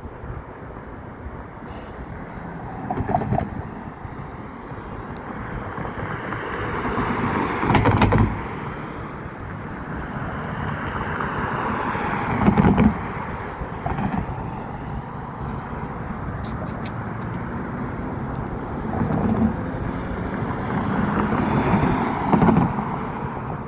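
Road traffic: cars pass one after another, each a swell of tyre and engine noise that rises and fades, over a steady background of traffic.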